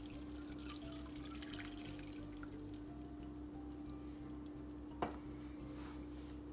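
Chicken broth pouring faintly into a slow cooker, with one sharp click about five seconds in, over a steady hum.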